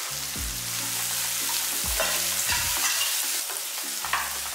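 Chopped onions, green chillies and curry leaves sizzling in hot oil in a nonstick kadai, stirred and scraped with a wooden spatula, with a steady frying hiss and scattered short scraping strokes.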